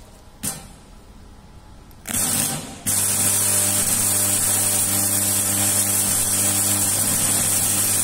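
Electric arc in a locally built arc furnace: a brief crackle about half a second in and a short burst at about two seconds, then from about three seconds a loud steady hiss over a low electrical hum as the arc holds between the rod electrode and the crucible.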